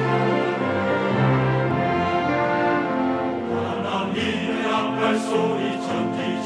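A large church choir with an orchestra of violins and cellos performing a hymn. The orchestra plays alone at first, and the choir comes in about halfway through.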